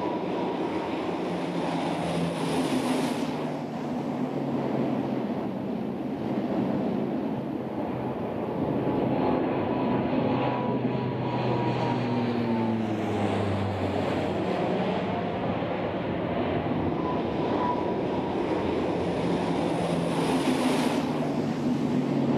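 Steady drone of a C-130 Hercules's four turboprop engines as the aircraft flies low. Its pitch drops as it passes, around the middle.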